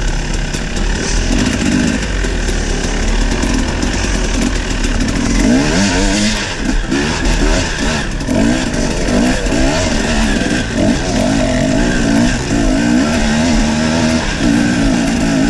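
Enduro dirt bike engine running under load on a rough uphill trail, its pitch rising and falling constantly with the throttle.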